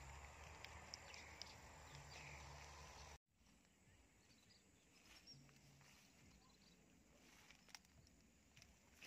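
Near silence: faint outdoor rural ambience with a low steady hum and scattered small clicks, broken by a moment of complete silence about three seconds in, after which it is quieter still.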